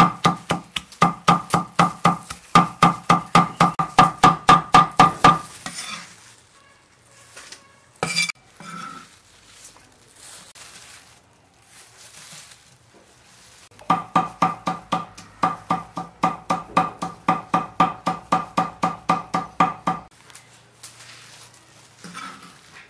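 Cleaver rapidly mincing red peppers on a wooden chopping block: quick knocks, about five a second, each with a short woody ring. The chopping stops about five seconds in, soft handling sounds follow, and the fast chopping starts again for about six seconds before stopping near the end.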